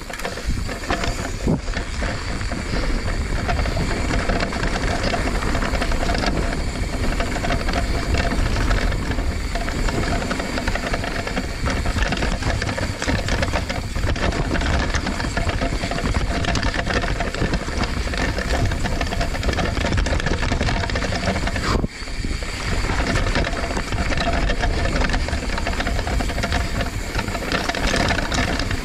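Mountain bike descending a rocky, rooty dirt trail: continuous rattling and clattering of the bike as the tyres roll over rock and dirt, with rushing noise. The clatter briefly lets up about two thirds of the way through.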